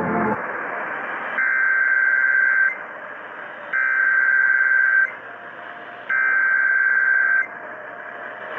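Emergency Alert System SAME header: three bursts of warbling digital data tones, each a little over a second long and about a second apart, received over a radio with hiss between them. The bursts signal the start of an emergency alert broadcast.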